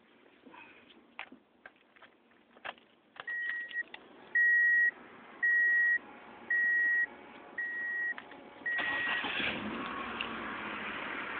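Clicks of keys and handling, then the 1998 Ford Escort ZX2's warning chime beeping six times, about once a second. Near the end the car's 2.0-litre four-cylinder engine starts and keeps running.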